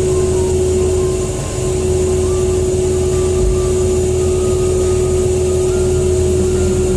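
A machine's engine running steadily, with a strong constant hum and a brief dip in level about a second and a half in.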